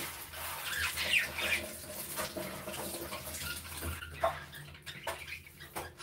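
Flock of budgerigars chattering together: a dense, busy mix of short chirps, warbles and clicks, thickest in the first couple of seconds.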